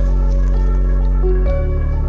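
Background music: held ambient chords over a deep bass, the chord changing about one and a half seconds in.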